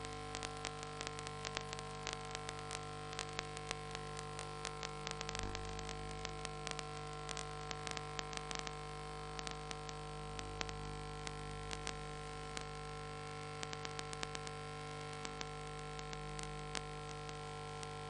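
Steady electrical hum of several tones with frequent irregular crackling clicks: static and interference on the audio line.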